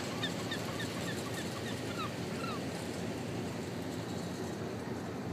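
Steady rushing outdoor noise of wind and water at the harbour shore. Over the first couple of seconds comes a quick run of short, high, falling chirps from birds.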